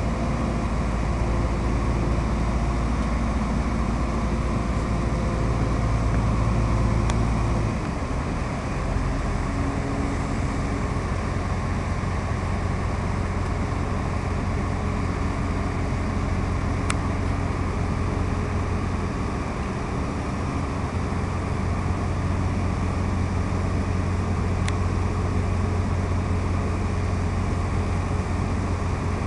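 Diesel power packs of self-propelled modular transporters (SPMTs) running steadily under load as they drive a heavy structure, a continuous low engine drone whose note changes about eight seconds in.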